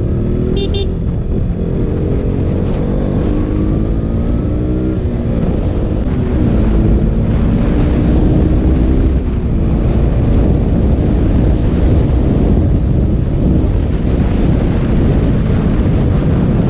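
KTM RC 200's single-cylinder engine under way, its pitch climbing for the first five seconds or so, then dropping at a gear change and running steadier as the rush of noise grows louder. A short high beep sounds under a second in.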